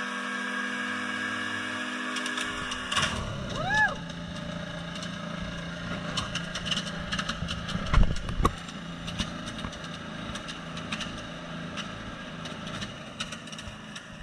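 Hovercraft's two-stroke Rotax 277 engine and lift fan running steadily, then the note breaks off abruptly about three seconds in. The engine runs on at a low idle with scattered clattering and knocks, and a loud knock comes about eight seconds in.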